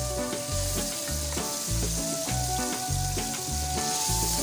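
Fish curry masala sizzling in a cooking pot, with a wooden spoon starting to stir it near the end. Background music with a steady low beat about twice a second and a held melody plays alongside.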